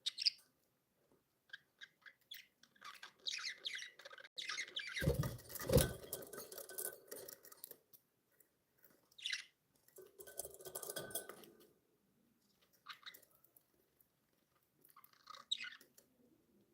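Pet budgerigars chirping and chattering in short, scattered bursts, busiest from about three to seven seconds in and again around ten seconds in. A dull thump about five seconds in is the loudest sound.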